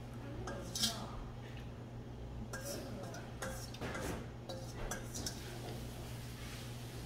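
Metal spoon clinking and scraping against a stone pot and a stainless steel bowl while eating, with a sharp clink about a second in and a few lighter clinks later.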